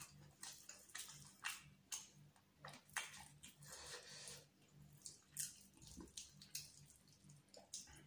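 Close-miked wet eating sounds: fingers squishing and mixing chicken biryani rice, with chewing and lip smacks, as irregular short clicks and smacks.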